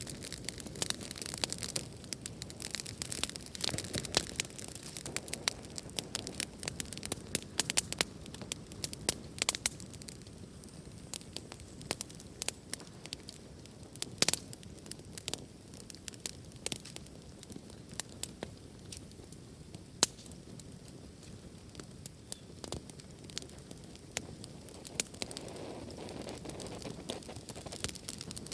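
Wood fire in a fireplace crackling heavily: frequent sharp snaps and pops over a soft, steady rush of burning, with a couple of louder pops around the middle.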